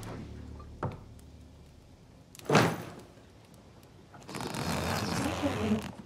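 Low background music fades out. A single thump comes about two and a half seconds in, and near the end there is a second and a half of rustling, like a case or cloth being handled.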